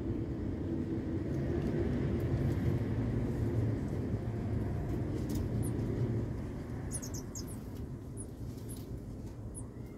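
A low, steady engine rumble that swells and then fades after about six seconds, like passing traffic. Over it, a few short high chirps from a small bird in the later half.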